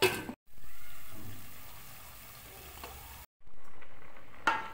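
Hissing and bubbling from a cooking pot on the stove, heard in two short stretches that each start loud and fade, cut apart by brief silences. A sharp clatter at the very start and a single knock about four and a half seconds in.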